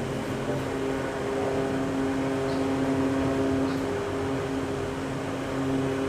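A steady droning hum made of several held tones, running at an even level.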